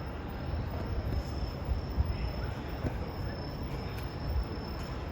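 Steady, unbroken high-pitched trill of night insects, typical of crickets, over a low rumble.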